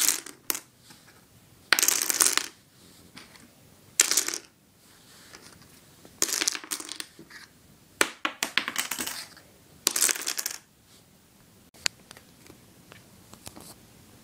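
Dominoes toppling and clattering onto a wooden tabletop, in separate bursts every second or two as one run after another falls.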